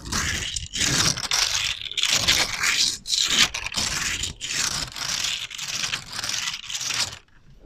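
ASMR trigger sound: repeated scraping strokes in quick succession, each a rough noisy swipe, stopping abruptly near the end.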